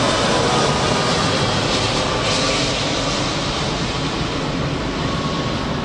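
Boeing 757-200 airliner's jet engines sounding steadily as it flares just above the runway on landing, a loud rumble with a faint whine that fades over the first few seconds.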